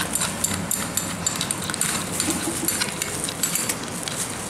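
Plastic grass guard of a brush cutter being handled and fitted onto its metal shaft: a run of small clicks, knocks and rattles of plastic against metal.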